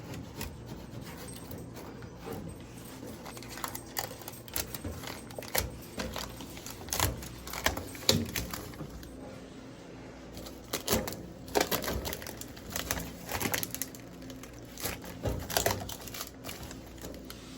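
Blue protective plastic film being picked at and peeled off the stainless steel casing of a Panasonic Cyclonic Inverter microwave: irregular clicks, taps and crackles, louder and denser in the second half.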